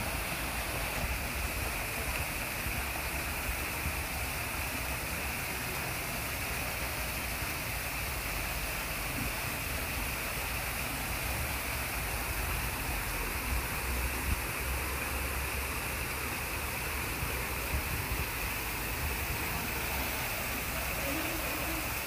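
Steady rush of falling water, such as a garden waterfall or fountain, with a low rumble underneath.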